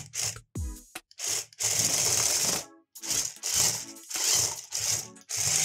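Electric drive motors and mecanum wheels of a remote-control toy tank whirring in short stop-start bursts as it is driven across a tabletop, running jerkily.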